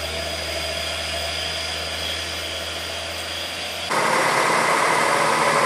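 Heavy diesel truck engines pulling up a hill: a steady low drone from a truck climbing away, then, after a sudden switch about four seconds in, a louder engine from another truck coming up the bend.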